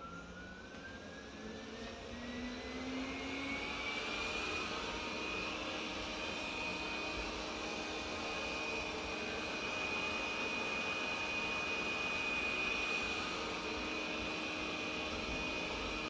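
360 S5 robot vacuum running at max suction: its whine climbs in pitch over the first four seconds or so as the fan spins up, then holds steady over a constant rushing hum.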